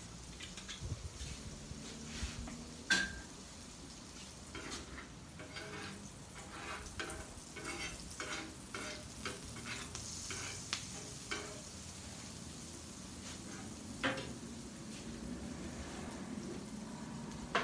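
Butter and oil sizzling on a hot steel Blackstone flat-top griddle with a steady hiss, the butter bubbling and foaming. A metal spatula scrapes and taps against the griddle surface, making a run of short clicks through the middle and single sharper knocks near the start and near the end.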